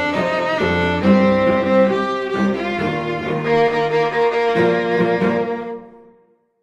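Background music of held, sustained notes that fades out about six seconds in, leaving silence.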